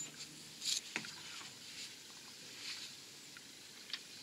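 A few faint clinks and a short scrape of a steel impact socket being set onto a wheel bearing's inner race and handled with gloved hands.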